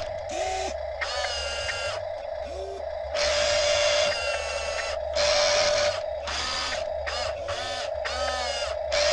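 Toy RC wheel loader's small electric drive motors and plastic gearbox whirring as it drives, the whine cutting in and out in bursts that are louder about three and five seconds in. Birds call in the background.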